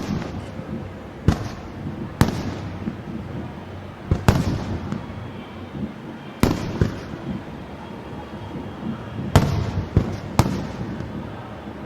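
Aerial fireworks shells bursting, about seven sharp bangs spaced one to three seconds apart, each trailing off in an echo.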